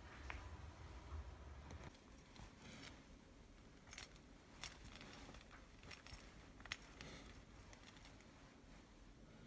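Near silence with a few faint, sharp clinks of a chunky pearl-and-metal necklace being adjusted by hand.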